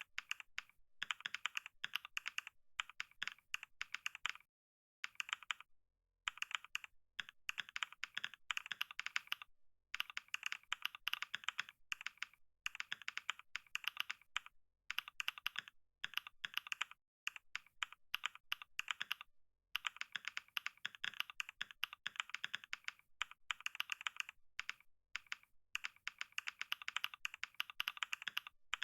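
Fast typing on a computer keyboard during a typing-speed test: quick runs of keystroke clicks broken by short pauses, the longest about four seconds in.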